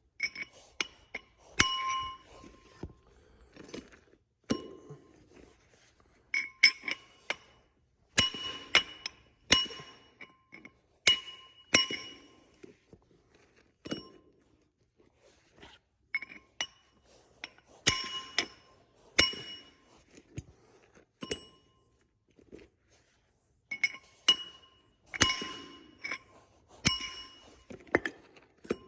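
Hammer blows on steel, each a sharp clink that rings with the same high tones, struck in irregular runs with short pauses: working a torch-cut part slowly off a combine final-drive axle shaft.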